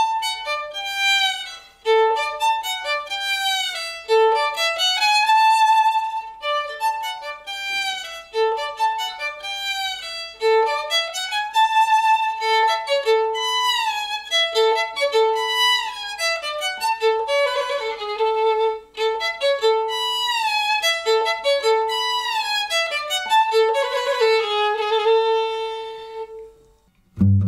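Solo violin playing a melody from a piece that portrays a cat, with many notes sliding up and down between held tones. It stops shortly before the end.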